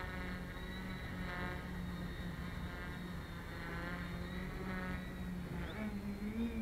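Quadcopter with Tarot 2814 700KV brushless motors flying overhead: a steady multirotor propeller buzz. Its pitch steps up near the end as the throttle rises.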